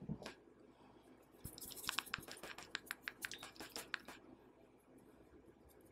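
Hands pressing and kneading a wet, egg-coated chicken piece in a bowl of dry seasoned flour: a faint, rapid run of soft crunching clicks from the packed flour, starting about a second and a half in and dying away after about four seconds.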